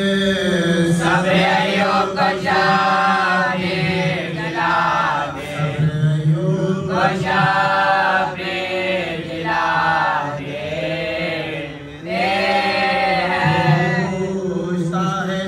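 Voices chanting a noha, a mourning lament, in long, drawn-out phrases that bend in pitch, with short breaks between phrases.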